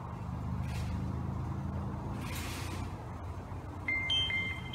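A steady low hum of a running engine or motor, with a short pair of high steady tones near the end.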